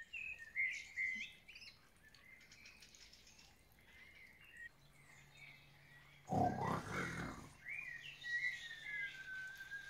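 Birds chirping, then about six seconds in a loud snore followed by a long whistle that falls slightly in pitch: the snore-and-whistle of someone sleeping.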